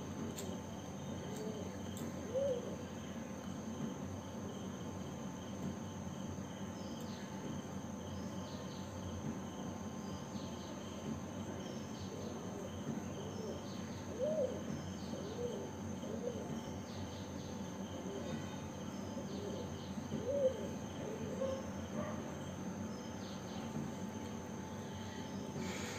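Steady background hum with a high thin whine, broken by a few short faint chirps a couple of seconds in, around the middle and again later on.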